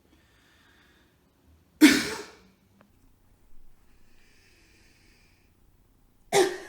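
A person breathes in and coughs forcefully twice, about four and a half seconds apart. Each cough is a short, hard burst, practised as a manually assisted cough with a fist pressed up and in under the ribs. A faint breath in comes before each cough.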